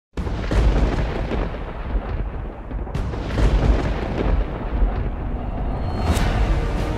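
Intro sound effects of continuous deep rumbling booms, with sharp thunder-like cracks about half a second, three seconds and six seconds in. Music starts in near the end.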